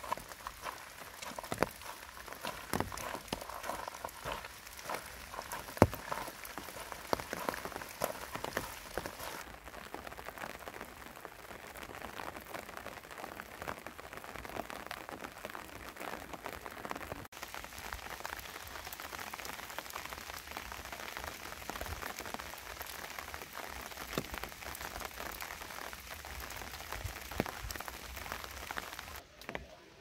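Steady rain falling in a forest, with many sharp, close drip taps over a soft hiss.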